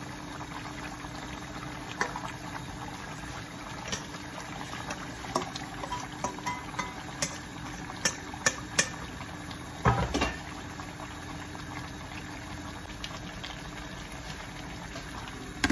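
Pot of soup bubbling on a gas stove, with scattered clicks and knocks as chopped spinach is tipped in and stirred; the loudest knocks come about ten seconds in.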